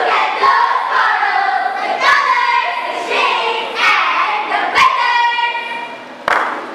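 A choir of schoolgirls voicing a choral speaking piece in unison, their words half chanted and half sung with held, rising and falling pitches, punctuated by several sharp hits.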